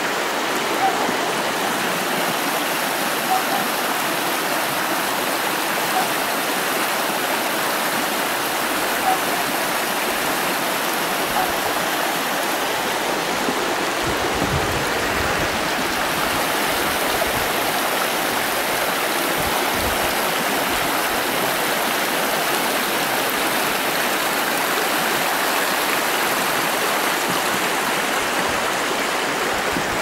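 Shallow mountain stream rushing over rocks, a steady, even rush of water.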